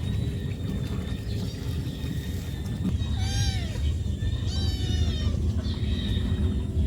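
Cat meowing twice, each call rising then falling in pitch, calling for its mother because it wants food.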